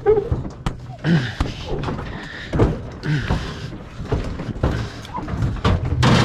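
Irregular knocks and thumps of scrap metal being handled, about one a second.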